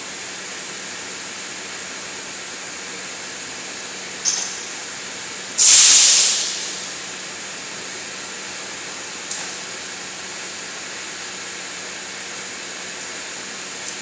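Windshield bending furnace line running with a steady hiss and hum, broken by sharp bursts of hissing air. There is a short burst about four seconds in, a loud one shortly after that fades away over about a second, and two brief ones later.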